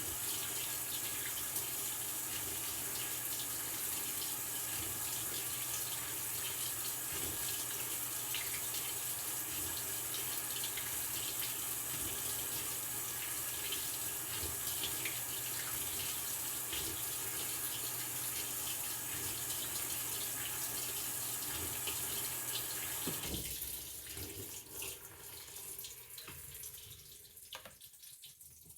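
Maytag Bravos XL top-load washing machine filling with water: a steady rush of water into the tub that cuts off suddenly about 23 seconds in as the fill valve closes, leaving faint trickling.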